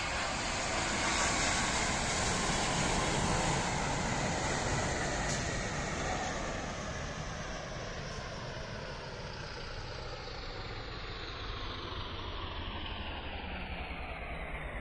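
Boeing 787 Dreamliner's jet engines on a low landing approach passing the listener: a rushing roar that is loudest a few seconds in, then fades as the engine whine slides steadily down in pitch.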